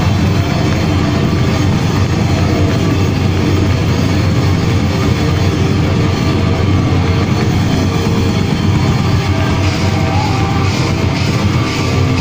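Heavy metal band playing live, loud and dense with distorted guitars and drums, heard from inside the crowd. Near the end a steady high beat on the cymbals comes in.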